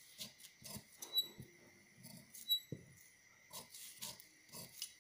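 Large tailor's shears cutting through paper pattern: a run of short snips, roughly two a second, a couple of them with a brief high squeak from the blades.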